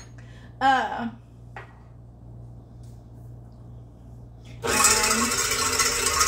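KitchenAid stand mixer switched on about three-quarters of the way in, its motor starting suddenly and running loudly as it beats egg whites with cream of tartar in the steel bowl.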